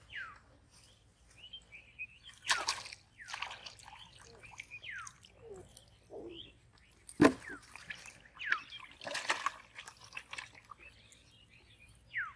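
Water splashing and sloshing as a hooked fish is struck and lifted out of a pond, with a sharp knock about seven seconds in, the loudest sound. Short falling bird chirps come and go throughout.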